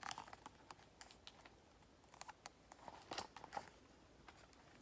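Faint rustling and small clicks of paper: a picture-book page being handled and turned.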